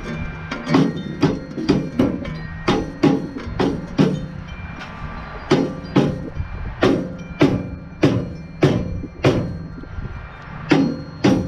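A rubber mallet striking a steel V-belt pulley, driving it onto the keyed front shaft of an Allis-Chalmers B-10 tractor. The blows come about two a second with two short pauses, and each leaves a brief metallic ring from the pulley.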